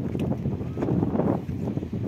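Wind buffeting the camera's microphone, with gusts swelling and easing.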